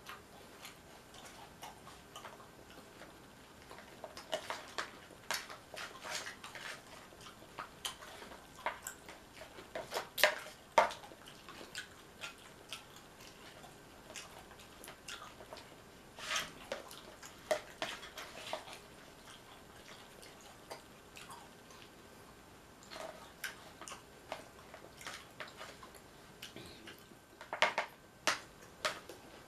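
Tortilla chips crunching as nachos are eaten, in irregular crisp cracks and clicks; the loudest crunches come about ten seconds in and again near the end.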